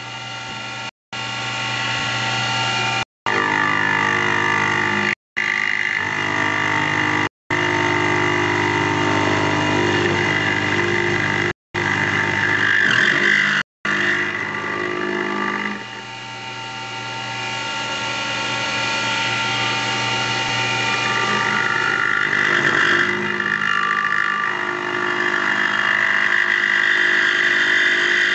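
CNC-converted Grizzly G0602 lathe running a cut in aluminum: a steady whine with many tones from the stepper motors and spindle. The sound drops out briefly several times in the first half, dips about halfway through, then builds up again.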